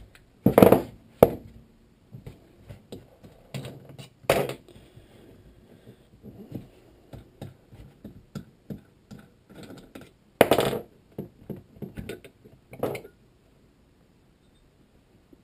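Metal spring clamps being taken off a hand-injection soft-plastic bait mold and set down, and the mold being opened by hand: about five sharp clacks and knocks, the loudest about half a second in, at about four seconds and at about ten seconds, with quieter clicks and handling noise between.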